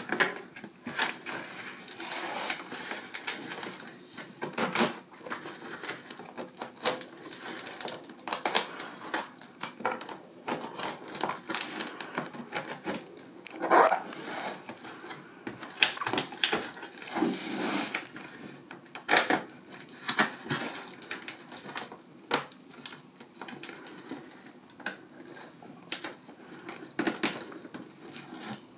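A knife slicing and sawing through packing tape and corrugated cardboard, with hands pulling the tape apart: irregular crackling, scraping and clicking, broken by several louder rips.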